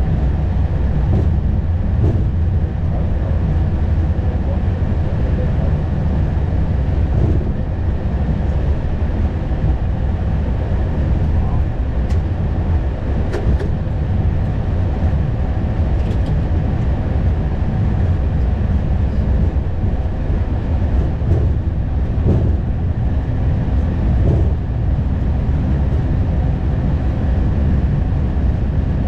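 Steady low rumble of cockpit noise inside an Airbus A220, with faint steady tones above it and a few light knocks scattered through.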